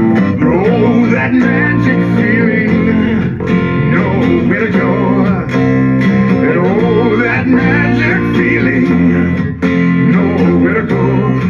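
Full-band rock recording playing loudly, with electric guitar lines bending in pitch over a plucked electric bass line played on a violin-shaped bass.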